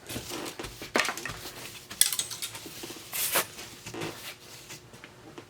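A box of loose metal sewing machine parts being handled: separate clinks and knocks of metal parts about once a second, with a short rustling scrape a little past the middle.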